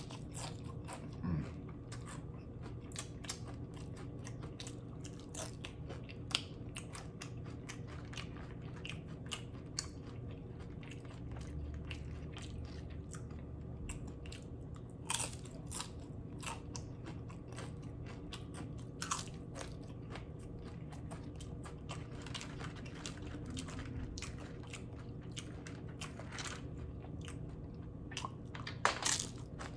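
A person eating loaded nachos up close: crunching tortilla chips and chewing, with scattered sharp crunches and crackles over a steady low hum.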